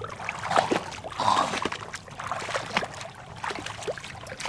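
Water splashing and sloshing in irregular small strokes, with a louder splash about a second in.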